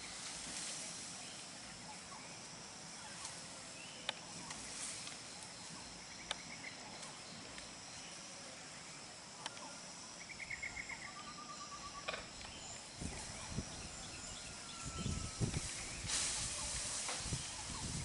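Outdoor ambience with a few short, fast bird trills and chirps over a steady background hiss. In the second half come low thumps and a burst of rustling.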